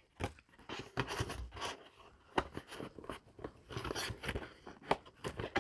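Cardboard card boxes being handled and arranged on a table: scattered light taps, scrapes and crinkles.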